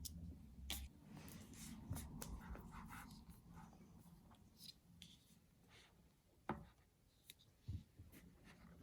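Faint, scattered light taps, clicks and scratchy rubbing of small hard objects being handled, with one sharper tap about six and a half seconds in.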